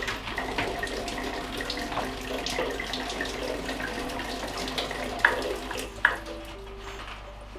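Water running and splashing out of a disconnected pipe fitting on a hot-water tank as the line drains, with two sharp knocks near the end.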